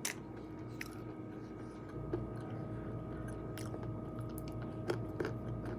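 A person chewing food, with a few scattered soft clicks and crackles, over a faint steady hum.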